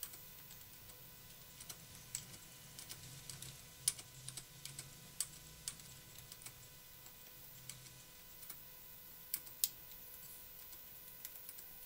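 Faint, irregular keystrokes on a Griptex Model 794 membrane keyboard during a typing test: soft, scattered key taps with no mechanical-switch clack.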